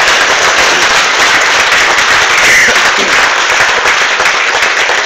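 Audience applauding, loud and steady: many hands clapping at once at the end of a speech.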